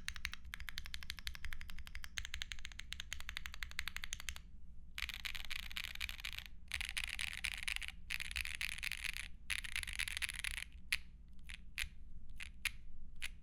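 Lucky65 aluminum 65% keyboard with lubed and filmed Holy Boba tactile switches and GMK keycaps being typed on fast, in dense runs of keystrokes. Near the end come a handful of single key presses.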